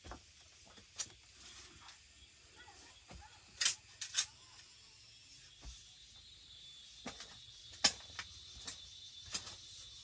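A hoe blade chopping and scraping into earth: short, sharp scrapes and knocks at uneven intervals, about eight in all, the loudest a little past two-thirds of the way through.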